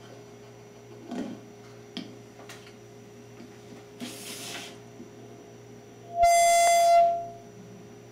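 A loud electronic beep of just under a second, about six seconds in, coming through a homemade phone-to-recorder hookup. Under it is a steady electrical hum from the line, with a few faint clicks and a brief hiss before the beep.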